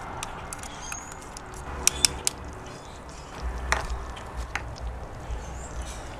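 Melted butter sizzling softly in a small cast-iron skillet on a charcoal grill, with a few sharp taps of a utensil about two seconds in. A low wind rumble on the microphone comes in about halfway through.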